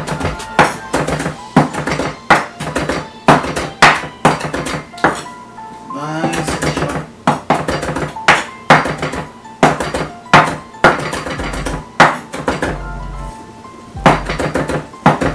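Chef's knife chopping parsley on a wooden cutting board: sharp knocks at an uneven pace of about two a second. Background music plays underneath.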